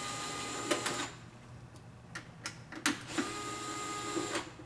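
DeWalt Gyro cordless screwdriver running twice, backing out the enclosure cover's screws: a steady motor whine for about a second each time, ending about a second in and again from about three seconds in. A few sharp clicks fall between the two runs.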